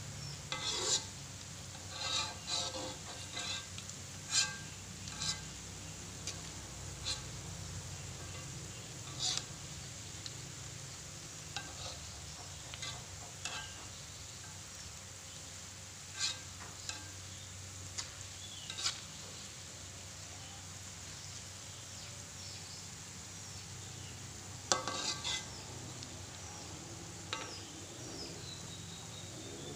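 Thinly sliced shallots deep-frying in hot oil in a wok with a steady sizzle. A spatula scrapes and knocks against the wok in scattered clusters of strokes as they are stirred, most thickly in the first few seconds and again near the end.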